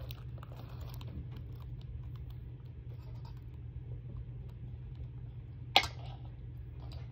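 A person chewing food, with faint small crunches and clicks over a steady low hum. A single sharp click or knock comes about six seconds in.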